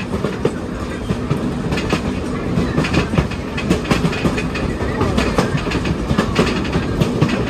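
Wheels of steam excursion train cars rolling over the track, heard from the rear of the train: a steady rumble with dense, irregular clicks and knocks.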